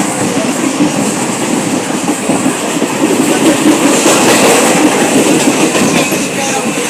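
Passenger train moving along the track: steady running noise of the wheels on the rails.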